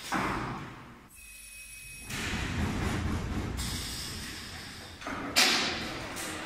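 Automated production-line machinery working. There is a thud at the start that fades away, then a few seconds of whooshing mechanical noise, then a sharp clack about five seconds in.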